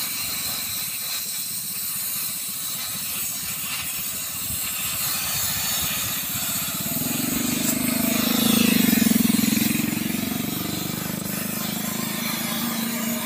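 Gas welding torch hissing steadily while it welds a broken rod on a motorcycle. About halfway through, a louder low buzz swells for a few seconds and fades.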